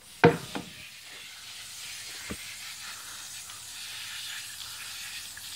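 Garden hose spraying a steady hissing jet of water onto concrete. A sudden loud knock comes just as it begins, and a smaller one about two seconds in.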